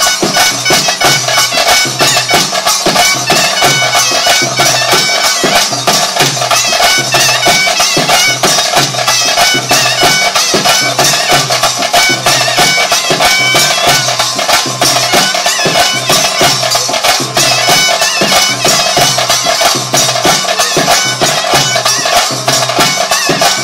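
Traditional South Indian ritual music: a shrill reed pipe playing a melody over a steady held drone, with fast, continuous drumming beneath it.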